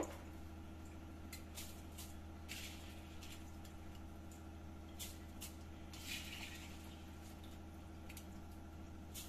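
Soaked rice dropped by the handful into hot spiced water in a pressure cooker: a few faint soft splashes and squelches, one a little longer about six seconds in, over a steady low hum.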